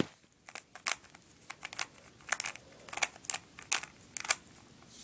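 3x3 Rubik's cube being twisted by hand: a quick, irregular run of plastic clicks and clacks as its layers turn.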